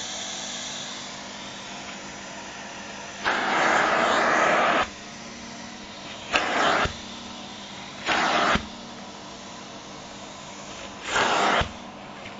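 Vacuum cleaner running steadily as its nozzle works over a nylon down jacket, with four louder surges of rushing suction noise, the first lasting about a second and a half, the others about half a second. Several surges end in a soft knock.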